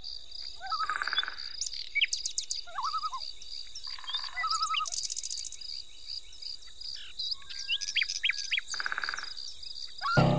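Woodland nature ambience: several birds singing and calling with whistles, trills and chirps, over a steady, evenly pulsing high chirring of insects. Music comes in right at the end.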